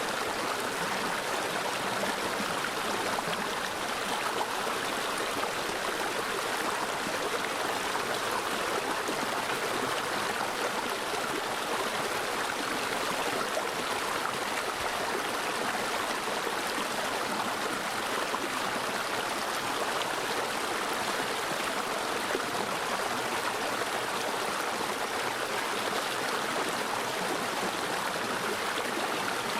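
Mountain valley stream running over rocks: a steady, even rush of water that does not change.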